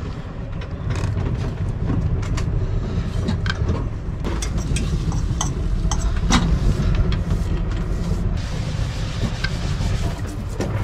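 Scattered clinks and knocks of galley cooking and washing up (a knife and cutting board, a pan on the stove, dishes in a sink) over a steady low rumble.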